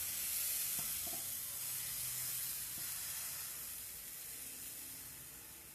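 Crepe batter sizzling as it is poured into a hot nonstick frying pan and swirled to spread it thin; the hiss fades gradually over the last two seconds or so.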